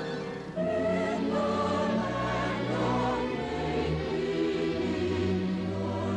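Orchestral music with a choir singing held chords over a slowly moving bass line.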